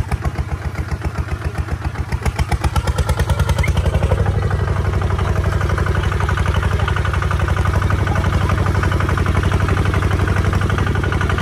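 Single-cylinder Kubota ZT155 diesel engine of a two-wheel walk-behind tractor chugging under load as it pulls a disc plough through wet soil. Its beat grows louder over the first few seconds, then holds steady.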